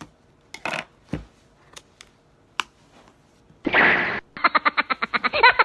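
Samsung Galaxy S9 Plus box being opened: scattered clicks and taps from handling the packaging. About three and a half seconds in comes a half-second rustle, then a fast run of ticks, about a dozen a second, to the end.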